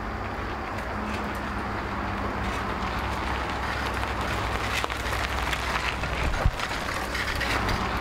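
Steady outdoor ambient noise with a low rumble, slowly growing louder, with scattered clicks and one sharp knock about six and a half seconds in.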